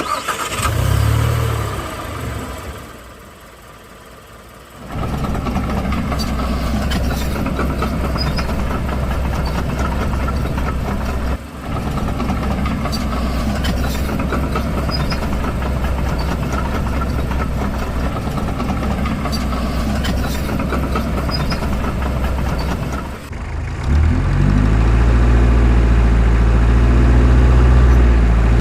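RC construction machines running, with a steady low engine sound and scattered clicks. About three-quarters of the way through, a louder, deeper engine drone comes in and shifts in pitch like revving.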